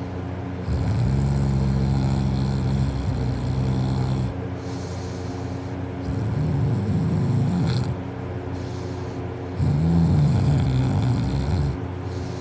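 A person snoring loudly in her sleep: three long snores a few seconds apart, the first held at a steady pitch and the later two rattling and wavering.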